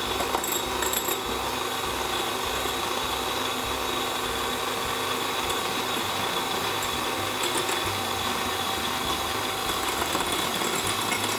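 Electric hand mixer running steadily, its beaters whipping egg white and powdered sugar into a glaze.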